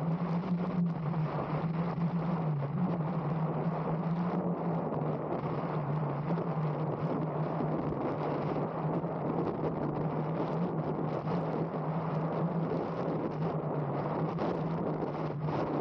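Wing foil board flying on its hydrofoil at speed: rushing wind and water with a steady low hum throughout.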